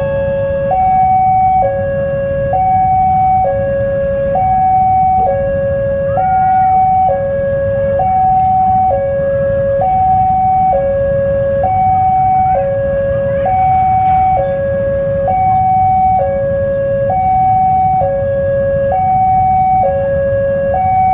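Electronic railway level-crossing alarm sounding steadily, alternating between a high and a low tone, each held just under a second. It warns that a train is approaching. A steady low rumble runs underneath.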